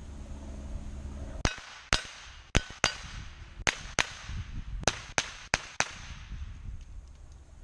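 Hi-Point 995TS 9mm carbine firing ten shots, mostly as quick pairs, starting about a second and a half in.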